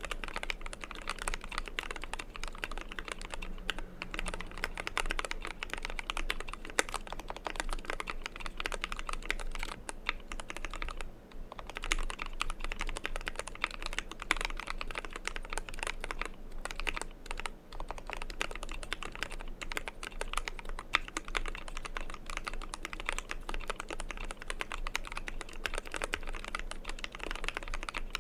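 Fast, continuous typing on a custom 60% mechanical keyboard: lubed Tealios V2 linear switches under PBT dye-sub keycaps, in a KBDfans Tofu aluminium case with EVA foam under the PCB. The typing breaks off briefly twice, about 11 and 17 seconds in.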